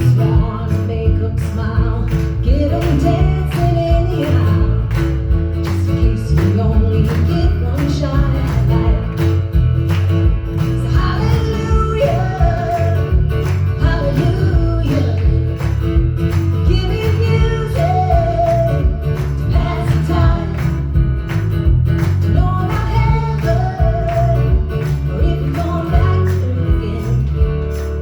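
Live folk-country song: acoustic guitar with a steady beat and low bass, and a melody line coming in short phrases every few seconds.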